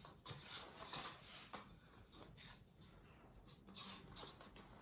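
Near silence with faint, scattered rustles and light clicks of small objects being handled.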